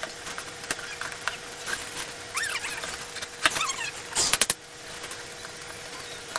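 Scissors cutting through a cardboard box: scattered clicks and snips, a few short squeaky chirps, then louder crunching scrapes about three and a half and four seconds in, over a faint steady hum.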